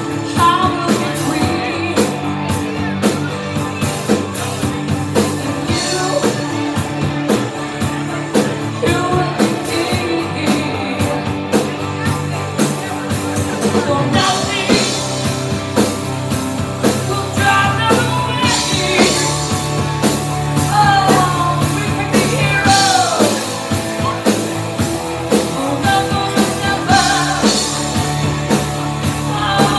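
Live rock band playing: a female singer sings over electric guitar, bass and a drum kit keeping a steady beat.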